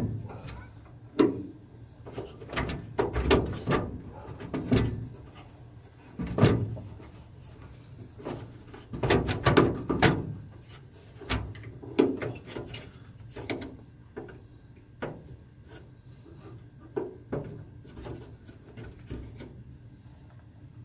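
Hard plastic grille parts being handled and fitted on a pickup's front end: irregular knocks, clacks and short scraping rubs, busy at first and sparser toward the end.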